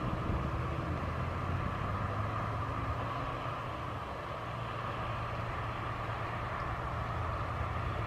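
Steady drone of car traffic passing on a road.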